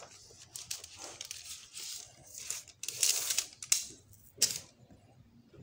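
Cardboard packaging folder and thin plastic film rustling and scraping in the hands as a table tennis rubber sheet is slid out, a run of handling noises with the loudest rustles around the middle and a sharp scrape near the end.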